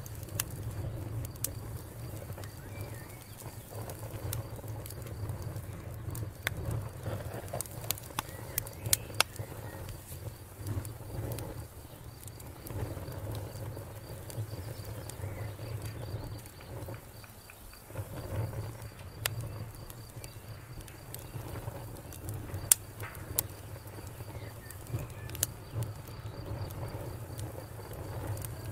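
Wood campfire burning, with scattered sharp crackles and pops from the logs over a steady low rumble.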